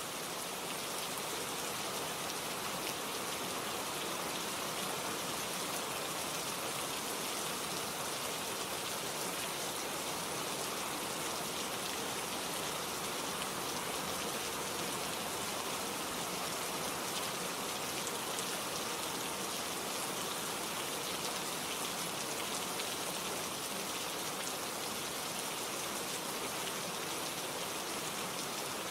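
Steady rain falling, an even, unbroken hiss of many drops with no pauses or single louder hits.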